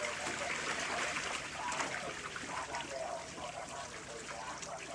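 Water spraying from the jets around the rim of an inflatable sprinkler splash pad and splashing as children move through it.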